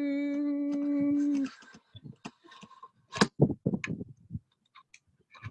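A person holding one steady sung 'doo' note for about a second and a half, then a few scattered faint clicks and knocks.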